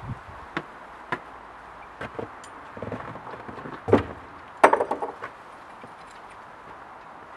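Boots stepping and knocking on plywood sheets laid over snow, with a sharp metallic clank and rattle about two-thirds of the way through.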